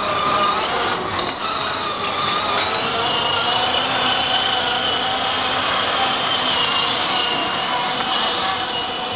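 Battery-powered children's ride-on toy vehicle driving, its electric motor and gearbox giving a steady high whine.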